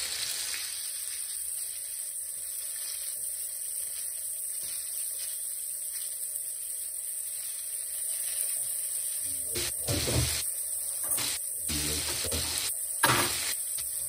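Floured Black Sea gobies frying in oil in a pan, a steady high sizzle. A single sharp knock sounds about a second before the end.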